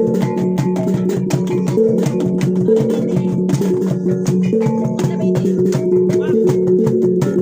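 Traditional T'boli music: short plucked notes repeating over a steady low drone, with quick rhythmic clicking strokes throughout.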